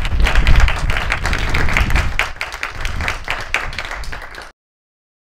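Audience applauding: many hands clapping at once, which cuts off suddenly about four and a half seconds in.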